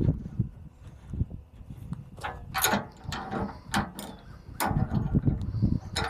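Ratcheting wrench clicking as a nut is run onto a bolt holding a bolt-on tooth bar to a loader bucket's cutting edge. The clicks are sharp and come in scattered groups, a few around the middle and a quicker run near the end.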